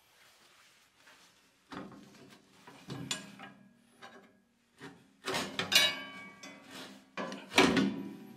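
Irregular metallic clanks and rattles of a two-stage snowblower's roller chain and sprocket being handled and fitted against the steel auger housing, in several short bursts, the loudest two near the end.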